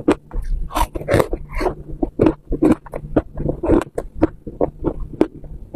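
Close-up crunching and chewing of frozen white freezer frost, with irregular sharp crunches several times a second.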